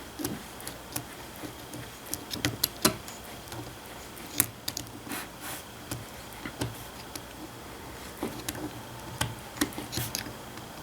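Scattered light clicks and metallic taps of hand work on worn tractor front spindle parts, with sharper knocks about three seconds and four and a half seconds in.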